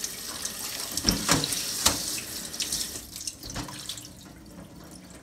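Water running and splashing in a stainless-steel kitchen sink as fish is rinsed in a metal bowl, with a few sharp knocks between one and two seconds in. The water noise dies down after about three seconds.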